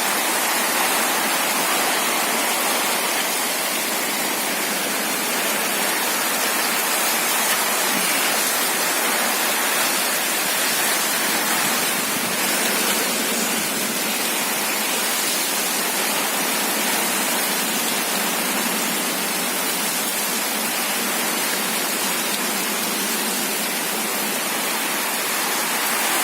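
Heavy monsoon rain falling in a steady, unbroken downpour, a continuous even hiss.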